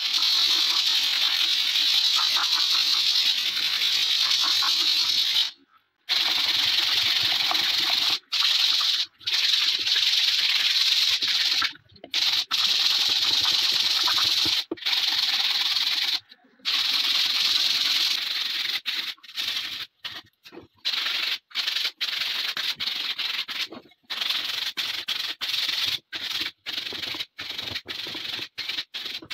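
Sandpaper on a hand sanding block rubbed along a new wooden shotgun butt. It makes a steady scratchy hiss in long passes that stop abruptly, then breaks into shorter, quicker strokes in the last third.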